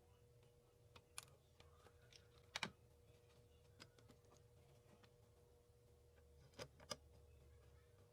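Faint, scattered small clicks and taps from handling the parts of a cassette Walkman, over a faint steady hum. Single clicks come about a second in, then a close pair near the middle and another close pair near the end.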